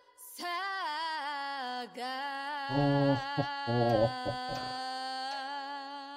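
A female voice sings a slow, wavering melody with little or no backing, starting about half a second in. For about two seconds in the middle, a man's low voice hums along.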